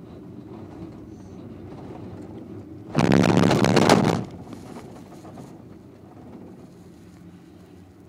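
Steady low running rumble of a POMA detachable gondola heard from inside the cabin. About three seconds in, a loud rattling rumble lasts about a second as the cabin's grip runs over the support tower's sheave rollers, then it drops back to the steady rumble.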